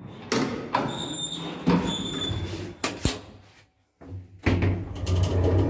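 Knocks and clatter from a new passenger lift's cabin and doors, with two short high electronic beeps about a second apart. After a brief gap, a steady low hum of the lift car running.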